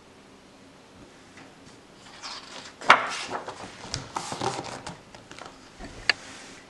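The page of a hardcover picture book being turned by hand and pressed flat on a wooden table: paper rustling and sliding for a couple of seconds, with a sharp knock about three seconds in and a light tap near the end.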